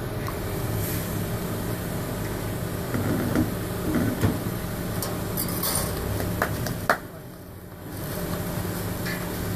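A steady low mechanical hum with scattered clicks and knocks.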